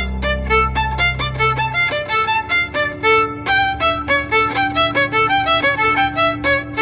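Fast violin tune of quick, short notes over a held low accompaniment: a music clip from a meme sound-effects pack.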